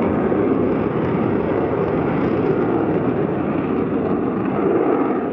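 Lockheed Martin F-35 fighter jet flying past, its single turbofan engine giving a steady, deep jet noise.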